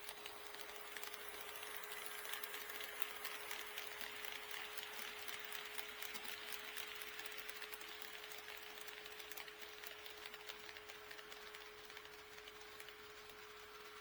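HO scale model train running along the track, its rolling noise swelling over the first few seconds and then slowly fading, with quick, dense clicks of the wheels over the rail joints. A steady hum runs underneath.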